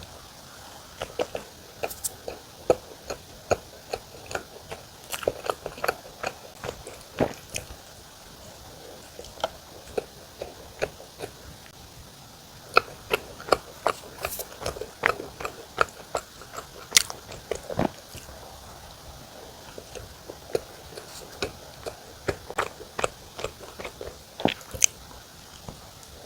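Close-up eating sounds: biting into and chewing mocha cream sandwich bread, a steady run of small wet mouth clicks and crunches at an uneven pace.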